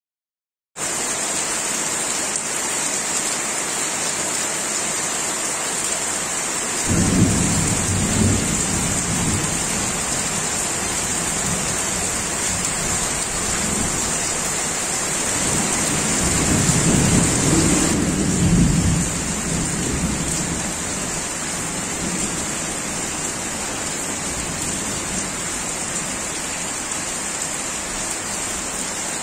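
Steady rain falling, a continuous hiss, with low rolling rumbles of thunder twice, first a few seconds in and again past the middle.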